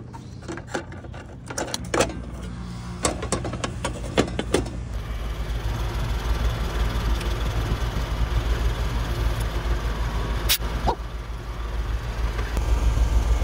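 Rooftop air-conditioning unit starting up: the compressor hums steadily and about five seconds in the rush of the condenser fan comes up and grows louder. In the first few seconds there are clicks and taps of brass hose fittings being handled, and one sharp click comes near the end.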